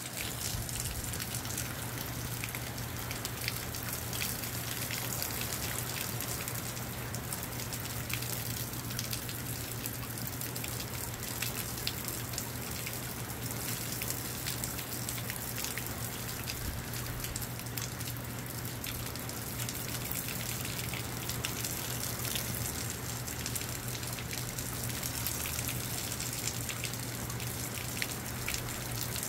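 Moderate rain falling steadily, with many separate drops ticking on nearby surfaces, over a steady low hum.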